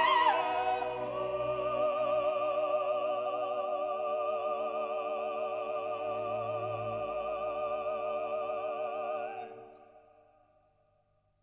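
Operatic music: a singing voice holds one long note with vibrato over sustained accompaniment, then fades away near the end.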